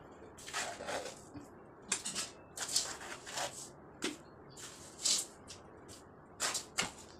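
Trowel and hands working wet cement mortar: a string of short, irregular scrapes and wet slaps as mortar is scooped from a plastic bucket and lumps are pressed onto a tiled floor.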